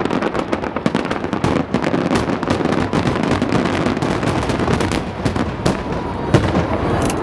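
A rapid salvo of aerial firework shells bursting over the sea: many sharp bangs and crackles in quick, overlapping succession, with a few louder bangs near the end.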